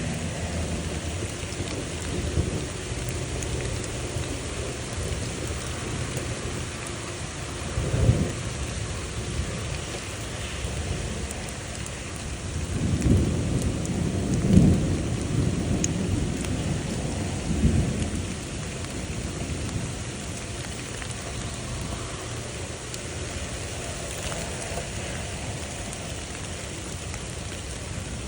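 Thunderstorm: steady rain with rolling thunder. A short low rumble comes about eight seconds in, and a longer rumble with several peaks follows about halfway through.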